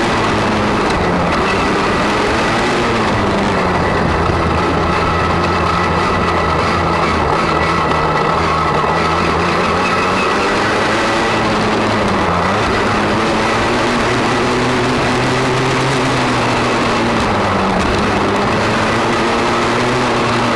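Motocross bike engine running steadily under way, its revs swelling and easing gently a few times.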